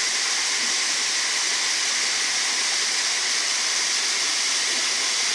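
Waterfall's steady rush of falling water, an even hiss that does not change.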